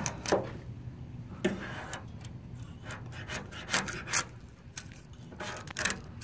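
Old base-coat paint being scraped and peeled off a car's wheel-arch panel, in short irregular scrapes and crackles. The paint is letting go with very little effort, easy to come off.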